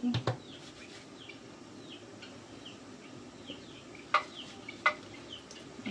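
A bird chirping faintly and repeatedly in short falling notes, about two a second. Two sharp clicks come about four and five seconds in.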